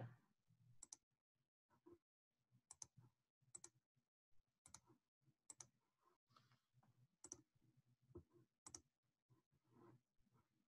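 Faint computer mouse clicks, mostly in quick pairs, about one group every second.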